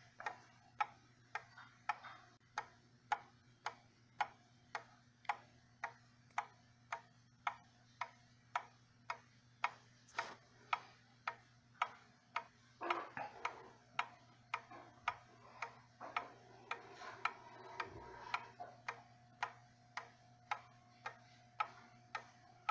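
1987 Ethan Allen skeleton wall clock with a German movement ticking steadily, a sharp tick from its escapement a little under twice a second.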